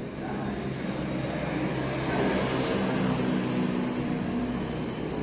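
A motor's steady drone with a low hum, swelling about two seconds in and easing off toward the end.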